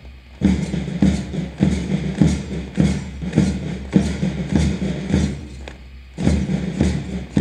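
Marching band drums beating a steady march cadence, a beat about every 0.6 seconds, breaking off for about a second around five seconds in and then resuming.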